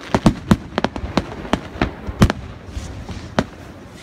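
Fireworks display: aerial shells bursting in an irregular string of sharp bangs, about a dozen in four seconds, the loudest about two seconds in, with a short quieter gap near three seconds.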